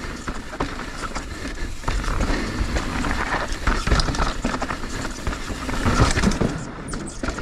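Mountain bike riding down a dirt and rock trail: a steady rush of tyre and air noise with many small knocks and rattles from the bike over the bumps.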